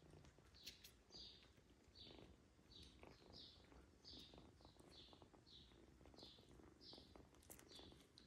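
Faint, high-pitched chirps repeating about twice a second over near silence, with soft rustling beneath.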